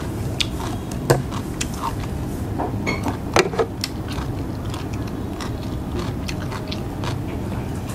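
A person chewing food, with scattered light clicks of chopsticks against a plate and bowl, over a steady low hum.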